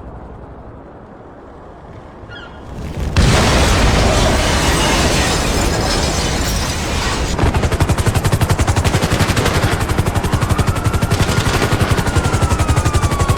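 A sudden loud explosion about three seconds in, then a continuous heavy rumble; from about halfway a rapid, even pulsing runs under it, and a thin whistling tone rises and then slowly falls near the end.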